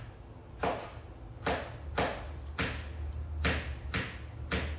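A series of about seven short, light taps and rattles, roughly one every two-thirds of a second, from a small jar of sugar-pearl sprinkles being handled as they are picked out and set on a cake by hand. A steady low hum lies underneath.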